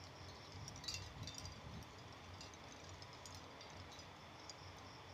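Quiet room tone with a low hum, and a few faint light clicks and clinks about a second in.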